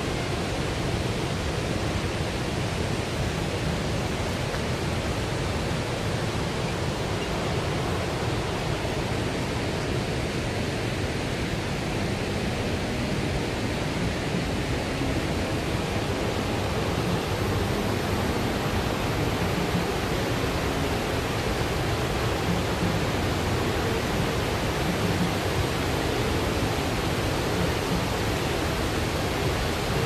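Steady rushing roar of the Bou Sra waterfall heard through the forest, growing slightly louder in the second half.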